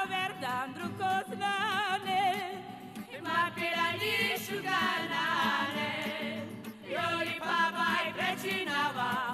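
Background music with a wavering, heavily ornamented melody line.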